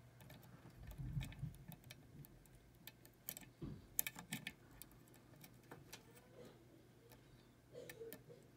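Faint, irregular metallic clicks and ticks of a lock pick and tension wrench working the pins of a small Chicago cabinet lock, over a faint steady low hum.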